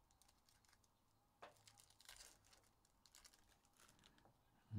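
Faint crinkling and rustling of foil trading-card pack wrappers being handled, with a few short crackles about a second and a half and two seconds in.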